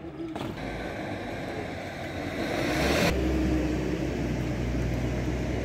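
Road vehicle noise: a rushing sound that swells over about three seconds and then cuts off abruptly. It gives way to a steady low engine rumble.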